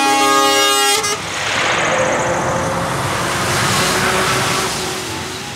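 Truck air horn sounding a steady blast that cuts off about a second in, followed by the rush of a heavy articulated truck driving past on the road, fading near the end.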